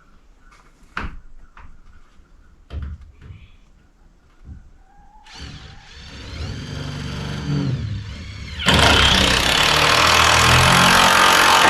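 Two knocks, then a circular saw's motor whining for a few seconds before it cuts loudly through wood for about three seconds and stops suddenly near the end.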